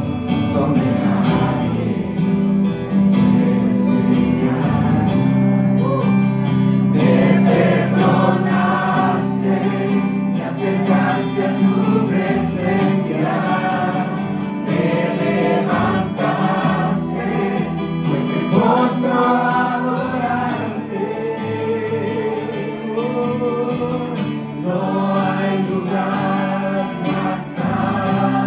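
A church congregation singing a worship song together with a live worship band, long chords held underneath the voices.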